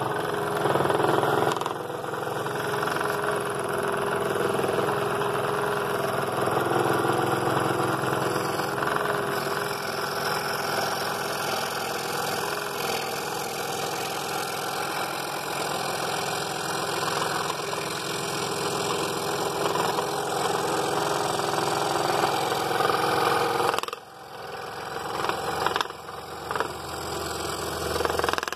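Scroll saw running, its reciprocating blade cutting an internal curve in half-inch walnut. The sound drops sharply about four and a half seconds before the end, then comes back unevenly.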